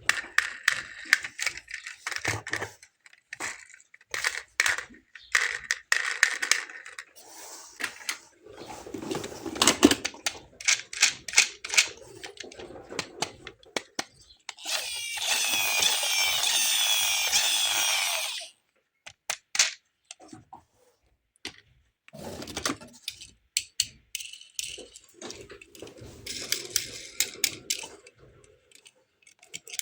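Toy cars and their packaging being handled: a run of plastic clicks, taps and rattles. In the middle comes a steady, wavering high-pitched sound lasting about four seconds, which then cuts off.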